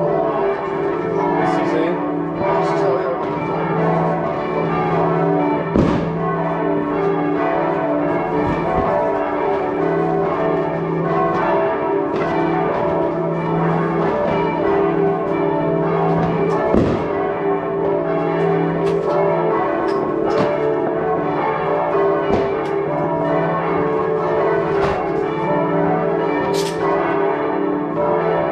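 Church bells ringing in the New Year, several bells pealing together without a break. A few sharp firework bangs cut through, about six seconds in and again about seventeen seconds in.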